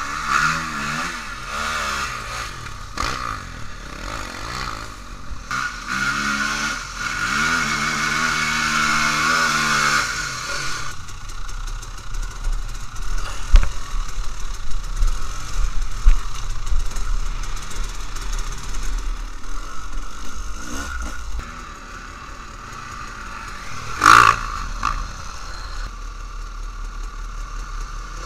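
Enduro dirt bike engines revving up and down as the bikes pick through ditches and over rough ground, with clattering knocks from the bike jolting over rocks and roots. A brief loud burst comes near the end.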